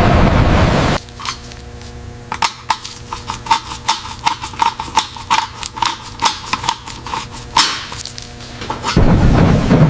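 Light metallic taps and clinks, irregular at about two or three a second, over a faint steady hum. A loud hissing rush cuts off about a second in and starts again near the end.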